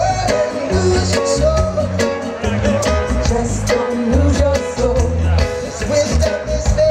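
Live reggae band playing, with a male lead vocal sung into a handheld microphone over a heavy bass line and drums.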